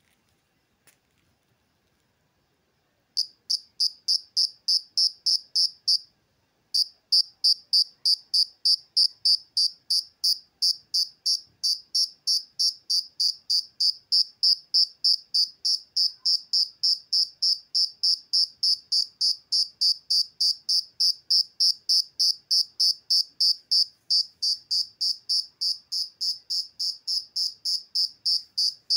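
Cricket chirping: short, high-pitched chirps repeated about three times a second. They start a few seconds in, break off briefly once, then go on evenly.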